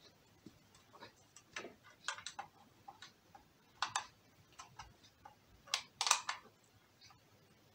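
Screwdriver turning the screw terminals of a plastic DIN-rail energy meter: irregular small clicks and ticks of metal on screw and plastic, the loudest about 4 s in and a cluster around 6 s in.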